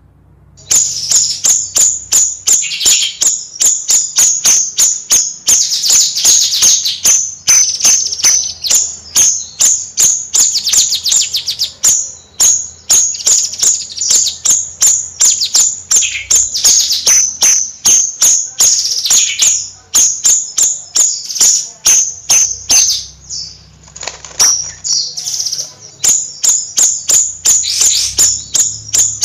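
Bayeman songbird calling in a fast chattering series of sharp, high chirps, several a second, broken by quick buzzy trills. It starts about half a second in and keeps on without a real pause.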